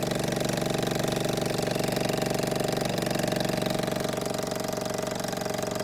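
Mamod TE1A toy steam traction engine's single oscillating cylinder running fast with a rapid, even beat, over a steady hiss from its safety valve lifting as steam pressure is up.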